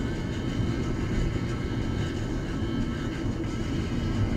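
Car cabin noise while driving: a steady low rumble of tyres on the road and the engine.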